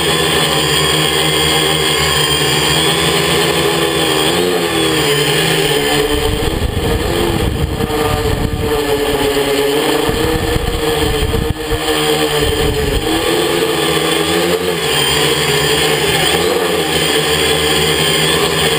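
Quadcopter's electric motors and propellers buzzing steadily in flight, heard from a camera hanging just beneath it, the pitch wavering up and down as it manoeuvres. A low wind rumble on the microphone joins in from about six to thirteen seconds.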